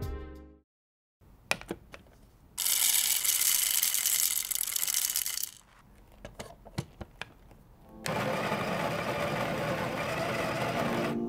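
Coffee beans poured rattling into an espresso machine's bean hopper, then a few clicks as the hopper lid is handled. About eight seconds in, the built-in conical burr grinder of a Breville Barista Express starts and runs steadily, grinding a double-shot dose into a cup.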